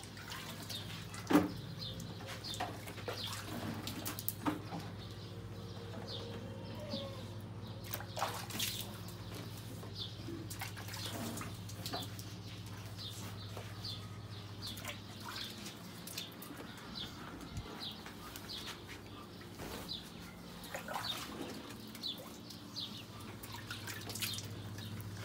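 Water dripping and trickling in small splashes over a steady low hum, with one sharp knock about a second in.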